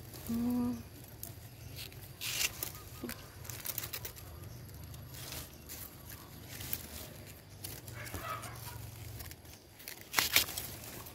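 Dry grass, dead leaves and plant stems rustling and crackling as someone moves through and handles the vegetation, with a louder cluster of crackles near the end. Near the start there is one short, steady-pitched call or hum, the loudest sound.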